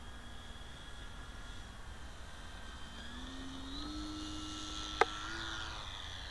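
RC P-40B Warhawk model's electric motor and propeller whining at a distance, the pitch stepping up from about three seconds in as the throttle opens for the takeoff run. A single sharp click about five seconds in.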